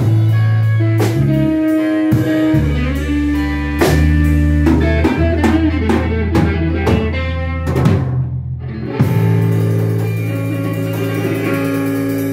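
A blues rock band playing live in a rehearsal room: Ludwig drum kit, electric bass and electric guitar, with no singing. After a short break about eight seconds in, the band holds long sustained notes with few drum hits.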